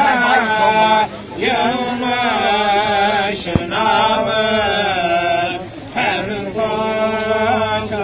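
A group of men chanting an Islamic devotional hymn, one lead voice carrying a slow, ornamented melody that glides between notes. The singing breaks off briefly about a second in and again near six seconds.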